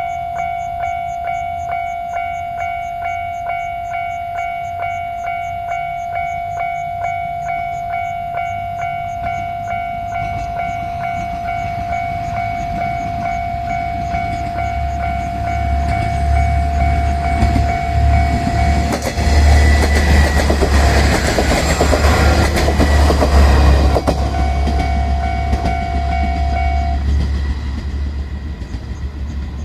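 Level-crossing warning bell ringing in a steady repeating rhythm of a little under two strikes a second. It is joined about fifteen seconds in by a three-car train of 1500 series diesel railcars rolling through: low engine rumble and wheel noise on the rails, loudest in the middle stretch. The bell stops a few seconds before the end while the train noise fades.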